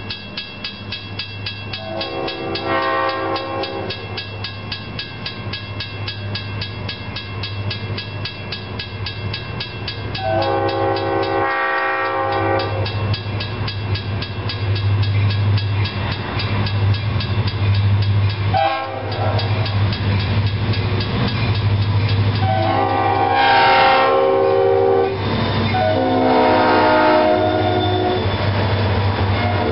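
Railroad crossing warning bell ringing rapidly and steadily while an approaching diesel train blows its multi-note air horn: a blast a couple of seconds in, a long blast about ten seconds in, a brief toot, then two long blasts near the end. Under it the locomotive's low engine rumble grows louder.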